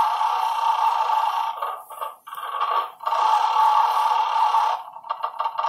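Electronic sound effects from a coin-operated roulette gaming machine's small built-in speaker: a steady, buzzy tone that drops out briefly twice, then turns into a run of quick, evenly spaced beeps about five seconds in.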